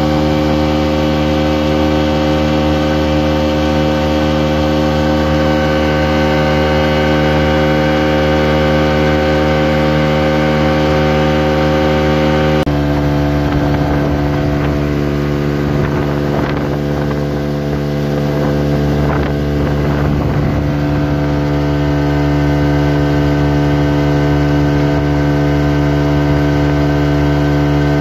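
Outboard motor running steadily at speed, pushing the boat along, its note holding even throughout. About halfway through it steps to a slightly different pitch.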